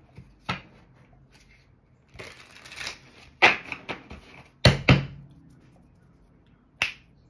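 Tarot deck being shuffled and handled: short rustles and flicks of cards, with scattered sharp clicks, the loudest a pair of cracks close together about halfway through.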